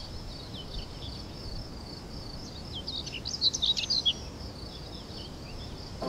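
Small birds chirping in quick, high calls, busiest about three to four seconds in, over a steady high insect hum and background hiss.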